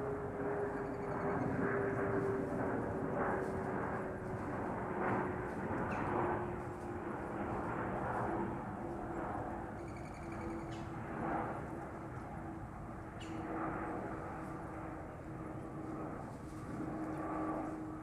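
Distant engine drone with a steady tone that slowly falls in pitch, under a haze of outdoor background noise. A few faint high chirps come about ten seconds in.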